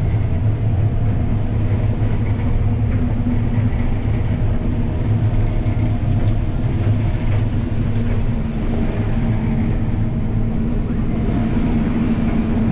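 A 2013 John Deere S660 rotor combine running steadily while harvesting soybeans: a constant low engine and threshing drone with a steady hum.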